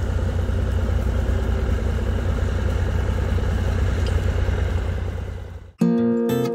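Engine running steadily with a low, even throb. It fades out near the end and strummed acoustic-guitar music cuts in.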